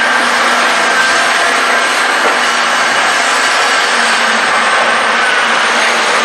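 Large mining excavator running steadily: a loud, even machine noise with a few constant whining tones over it.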